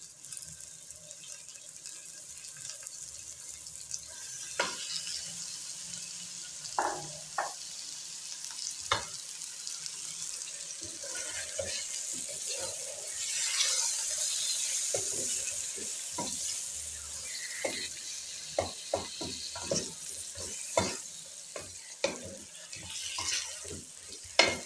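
Raw meat pieces sizzling as they fry in hot oil with browned onions in a metal pressure cooker, the start of browning the meat. A wooden spatula stirs them, with many short knocks and scrapes against the pot, more frequent in the second half; the sizzle is loudest in the middle.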